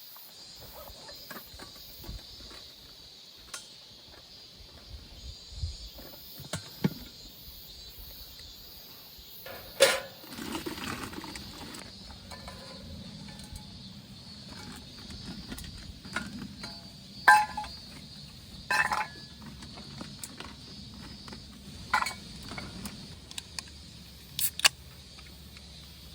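Steady chorus of insects chirring, with scattered sharp clicks and knocks on top, the loudest about ten seconds in and several more in the second half.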